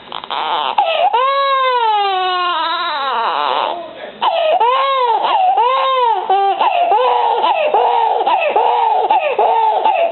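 Three-month-old baby crying in fright after being startled by a cough: one long wail that falls in pitch over about three seconds, then, after a quick catch of breath, a rapid run of short rising-and-falling cries.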